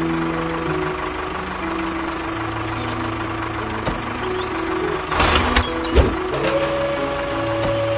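Background music with a plain stepped melody. About five seconds in comes a short rush of noise and a sharp knock, then a whine that rises and holds steady: the small electric motor that drives the toy thresher starting up.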